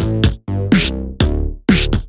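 Electronic background music with a drum-machine beat, sharp hits with a dropping low tone about twice a second.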